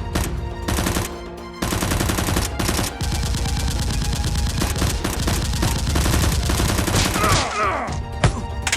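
Gunfire sound effects: a few single shots, then long rapid bursts of automatic fire, over background music.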